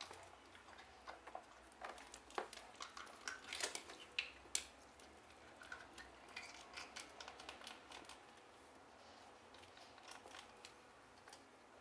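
Scattered small clicks, taps and light splashes from ferrets pawing and nosing plastic clothespins in a shallow plastic tub of water. They come thickest in the first half, then turn sparser.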